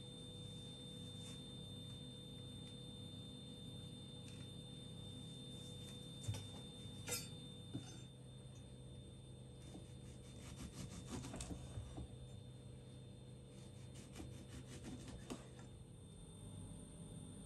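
Faint room tone with a steady hum, broken by light taps and rubbing of things being handled on a wooden board and counter: a few taps about six to eight seconds in, then busier bursts of rubbing and clicking around eleven seconds and again near fifteen.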